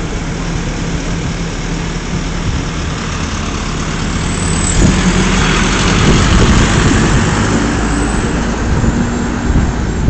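Road traffic noise: vehicle engines running with a steady low rumble, swelling a little partway through. No siren tone is heard.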